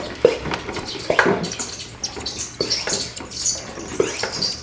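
Pressurised engine oil gurgling and spitting up into the cylinder head of a new Gen 2 Ford 5.0L Coyote V8 as it is primed from an external pressure source, in irregular pops with a hiss, stronger in the second half. It is the sound of oil pressure reaching the top end.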